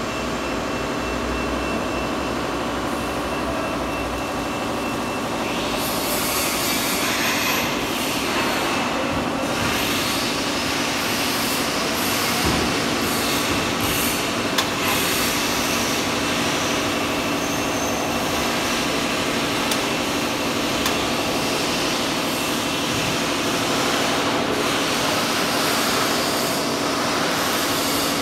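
Headstock-and-tailstock welding positioner's electric gear motors running with a steady hum as they turn a long welded steel frame. A loud rushing noise joins about six seconds in and carries on.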